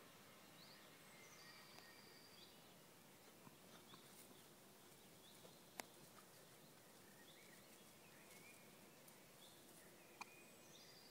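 Near silence with faint songbirds chirping in short, high calls throughout, broken by two sharp clicks about six and ten seconds in.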